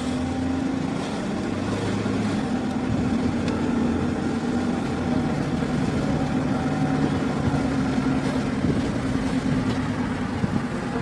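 Car engine and tyre noise heard from inside the cabin while driving, a steady drone.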